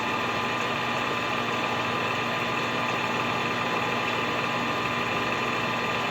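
Metal lathe running steadily while facing the base of a chainsaw cylinder on a mandrel: an even machine hum with a few constant whining tones and no change in pace.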